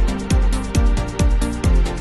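Electronic dance music with a steady four-on-the-floor kick drum, a little over two beats a second, and fast hi-hats over sustained synth notes.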